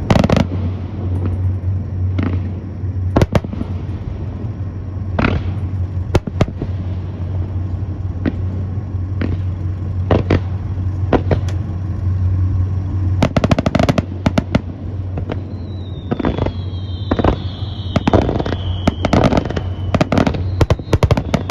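Fireworks display: separate bangs at irregular intervals, with quick rattling volleys of bangs in the middle and near the end. Partway through, a high whistle falls slowly in pitch. A steady low hum runs underneath.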